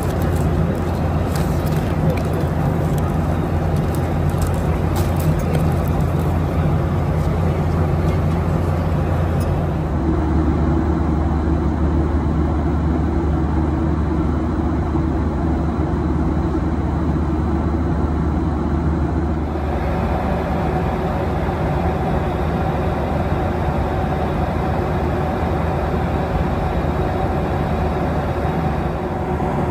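Steady low drone of a vehicle heard from inside it, its hum changing abruptly about ten seconds in and again about twenty seconds in.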